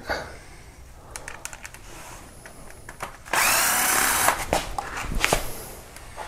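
Impact wrench running in one burst of about a second a little past halfway, then a few short blips, backing out the oil pump mounting bolts. A few light clicks of metal tools come before it.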